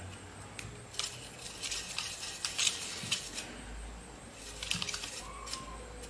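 Bristle brush scrubbing dust out of a clogged laptop cooling fan, the bristles scratching over the housing and flicking the fan's plastic blades in short spells of quick ticking and scratching, several times over.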